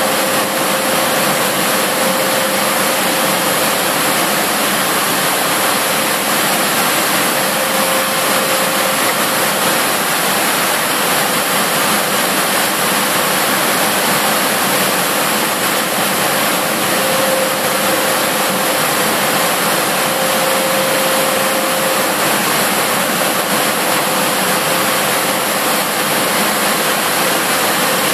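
Steady, loud rushing noise of factory machinery and fans, with a faint hum that comes and goes a few times.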